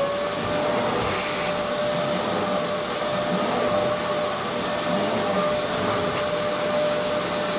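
Upright vacuum cleaner running steadily while it is used to hoover the floor: a constant rush of air under a high, even motor whine.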